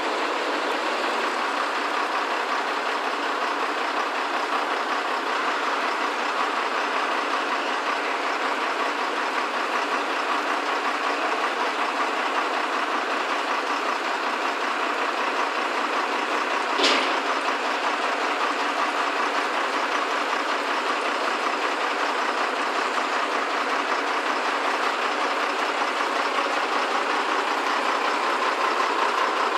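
Truck-mounted hydraulic crane running steadily, its truck engine and hydraulics working as it holds and swings a boat in slings. A single sharp click comes a little past halfway.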